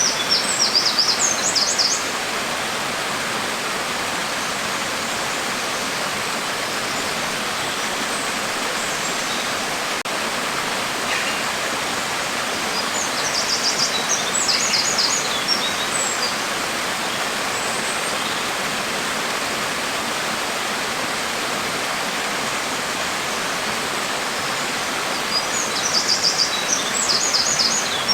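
Steady hiss of rain falling, with a bird chirping in short quick bouts three times: at the start, about halfway through and near the end.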